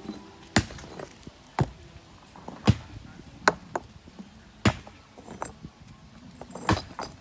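Hand masonry work: a tool striking brick or masonry with sharp clinking knocks, about seven of them, roughly a second apart but unevenly spaced.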